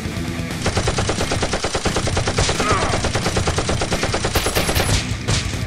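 Rapid automatic-gunfire sound as a Nerf blaster fires, a quick even stream of shots starting about half a second in and lasting about four seconds.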